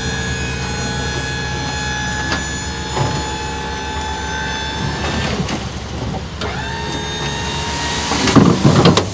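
1996 Mitsubishi Minicab mini dump truck's engine running steadily, with a few knocks a couple of seconds in and a loud clattering burst near the end.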